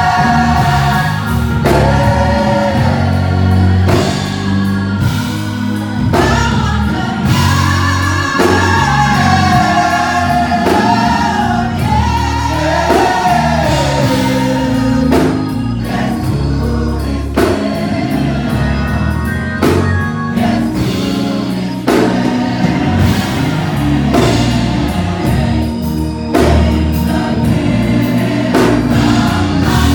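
Gospel choir singing with full band accompaniment, sustained voices over bass and a steady drum beat.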